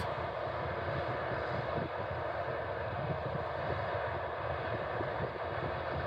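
Steady rumble of potato harvest machinery working in the field: a tractor pulling a Double L 973 potato harvester, with ten-wheel trucks running alongside it. No single event stands out.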